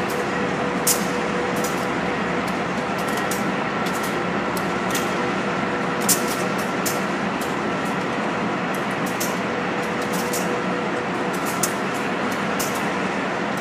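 Amtrak diesel locomotives running, a steady, loud engine noise with a faint steady whine. Irregular sharp clicks are scattered throughout.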